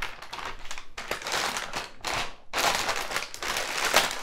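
Clear plastic bag crinkling as it is pulled open and a spool of 3D printer filament is slid out of it, in uneven bursts that are loudest in the second half.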